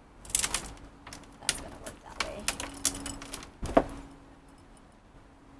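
A small scoop digging into potting soil and tipping it into a planter: a run of scrapes and clicks, with one louder knock a little under four seconds in.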